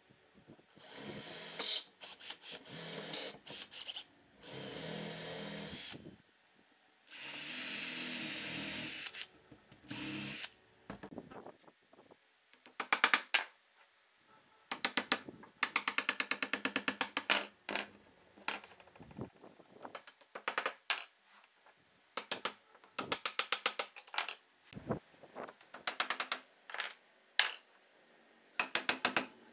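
A hand-held power tool in woodworking runs three times for a couple of seconds each. Then comes a long stretch of quick clicks and taps, including a rapid rattle.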